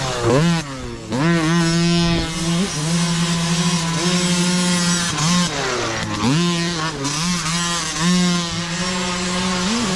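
Micro dirt bikes' small engines running at high revs as riders pass close by. The engine note mostly holds steady and high, dipping and climbing back up about a second in and again around six seconds in.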